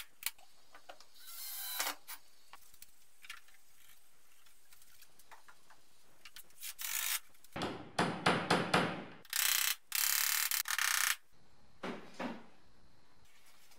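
Intermittent scraping and rubbing of wood and plastic tubing as an air line is worked along wooden wall battens. There is a quick run of several scrapes about eight seconds in, then a steadier burst of about a second.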